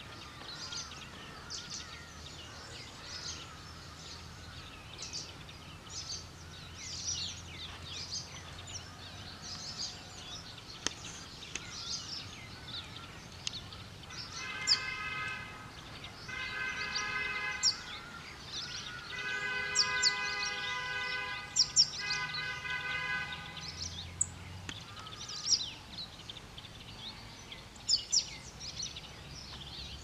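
Many small birds chirping and twittering in quick, high notes throughout. About halfway through, a horn sounds in four long, steady blasts.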